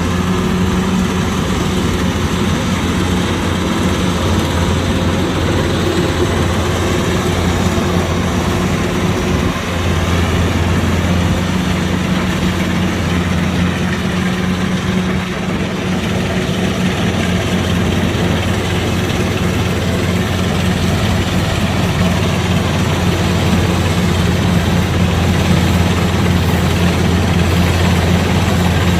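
Kubota DC-105X combine harvester's diesel engine running steadily with a deep, even hum, working machinery noise over it, growing slightly louder near the end.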